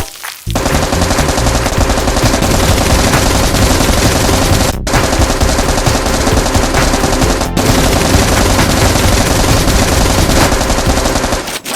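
Rapid automatic gunfire, continuous and loud, with two brief breaks partway through.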